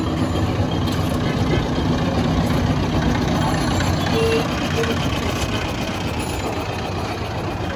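Steady low rumble of street traffic with idling engines, and two brief faint tones about four seconds in.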